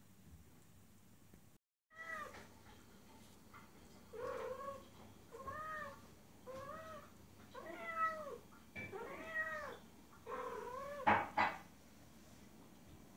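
Female calico cat in heat giving a string of drawn-out mating-call meows, about eight of them, each rising then falling in pitch. They start about two seconds in, after a moment of silence. A short knock lands with the loudest call near the end.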